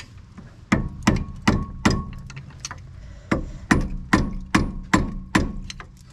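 Hammer striking the end of a screwdriver wedged under the front wheel hub's dust cap, prying the cap off: about a dozen sharp taps, roughly three a second, with a pause of more than a second in the middle. Some taps leave a brief metallic ring.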